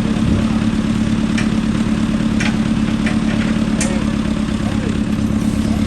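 An engine idling steadily with an even hum, with a few faint clicks over it.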